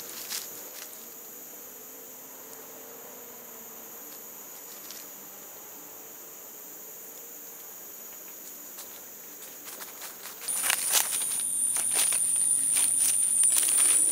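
Insects buzzing in a steady high whine; about ten seconds in, a much louder high insect buzz starts up close. Crackling of dry leaves underfoot comes with it, with a few lighter crunches near the start.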